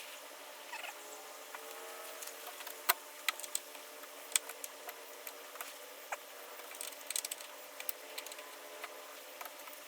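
Scattered light clicks and taps over a low background hiss, with a sharper click about three seconds in and another at about four and a half seconds.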